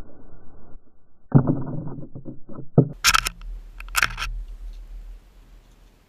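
House finches fluttering and scrabbling at a seed feeder right against the camera: a quick run of muffled thumps and scuffs from wings and feet, then two sharp crackling bursts about three and four seconds in.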